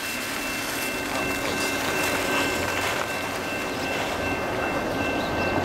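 Two EMD GP38-2 diesel locomotives with 16-cylinder EMD 645 engines approaching at the head of a freight train, running under power and slowly getting louder. A thin, steady high-pitched tone runs throughout.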